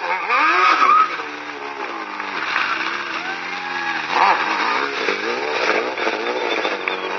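Sport-bike engine revving hard during stunt riding, its pitch swooping up and down again and again, with the highest rev peaks in the first second and again about four seconds in.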